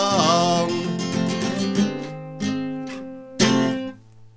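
Acoustic guitar strummed through the closing chords of a folk song, the singer's last held note bending down and ending in the first half-second. A few separate strums follow, and a final strum near the end rings briefly and dies away.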